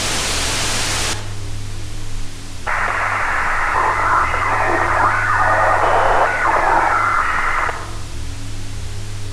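Radio static hiss that cuts off about a second in. A few seconds later comes a narrow, tinny radio transmission lasting about five seconds, and a steady low hum runs under both.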